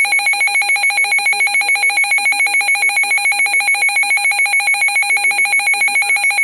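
Emergency alert tone announcing a severe thunderstorm warning: a loud, steady, shrill electronic alarm with a fast, regular flutter.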